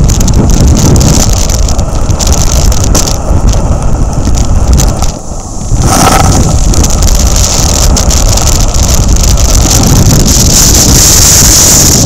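Loud storm surf churning and breaking against a groyne, with strong wind buffeting the microphone as a heavy rumble. The noise dips briefly about five seconds in, then comes back, and the hiss of foam and spray is strongest near the end.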